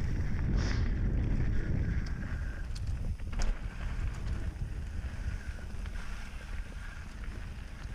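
Wind buffeting a GoPro action camera's microphone with the low rumble of a mountain bike rolling down a dirt singletrack, and a few sharp clicks and rattles from the bike over rough ground around the middle.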